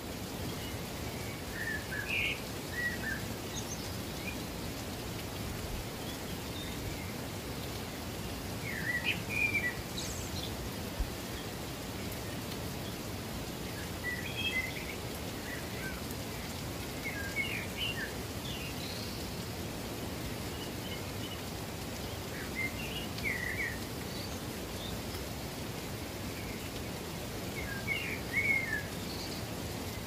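Steady rush of running water, with birds chirping in short phrases every few seconds, the loudest bursts about nine seconds in and near the end.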